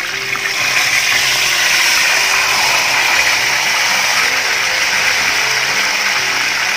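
Whole red pomfret sizzling in hot oil in a frying pan just after being turned over. The hiss swells about a second in, then holds loud and steady.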